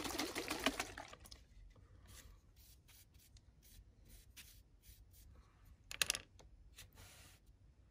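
Small handling noises on a workbench: a bottle of stain shuffled and set down at the start, then scattered light clicks and taps. About six seconds in, a short clatter as a paintbrush is picked up off the cutting mat.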